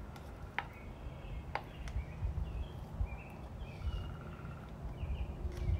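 Short bird chirps over a steady low rumble, with a few light clicks of a wooden stir stick against a plastic cup as the last of the epoxy resin is scraped out.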